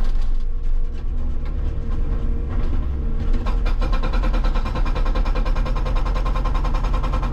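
Hitachi 160 excavator running with its hydraulic rock breaker hammering solid rock in rapid, even blows. The hammering is quieter at first and picks up strongly about three and a half seconds in.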